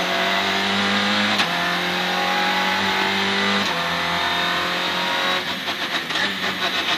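Citroën C2 R2 Max rally car's four-cylinder engine heard from inside the stripped cabin, running hard at high revs as it laps the circuit. Its note steps down twice, about a second and a half in and again about three and a half seconds in, and turns choppy and uneven for about a second near the end.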